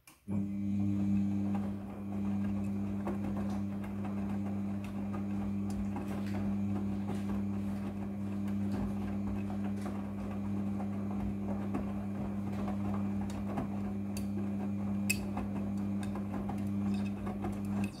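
Midea front-loading washing machine's drum motor running with a steady hum, turning the drum so the wet laundry tumbles inside with scattered clicks and knocks. It starts abruptly just after the beginning and stops at the end, one tumbling turn of the wash cycle.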